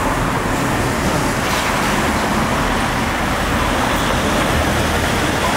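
Steady city road traffic: cars and pickups passing close by, with engine and tyre noise.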